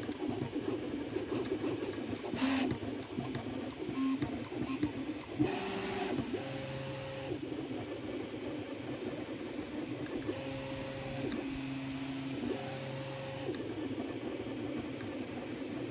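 Original Prusa Mini 3D printer printing: its stepper motors whine as they drive the print head. For the first several seconds the pitch warbles through quick, changing moves. It then settles into steady whines that switch between a higher and a lower pitch about every second.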